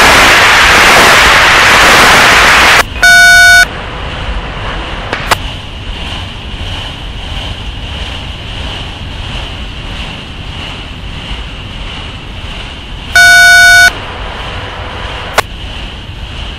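Railroad radio scanner feed. An open channel gives a burst of static hiss for about three seconds. A short electronic beep follows, and again near the end, with low radio hiss and a couple of clicks in between.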